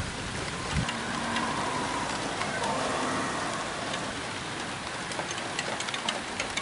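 Rain falling steadily in a thunderstorm: an even hiss with scattered ticks of drops.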